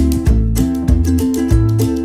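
Background music: plucked-string instrumental with a steady beat.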